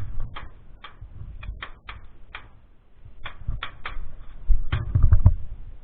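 Airsoft gun firing single shots in quick, uneven succession, about a dozen sharp cracks, as covering fire. Low thumps on the microphone come near the end.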